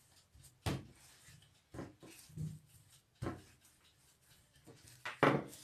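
Wooden rolling pin working a sheet of dough on a countertop: irregular soft thuds and knocks every second or so, with two sharper knocks close together near the end.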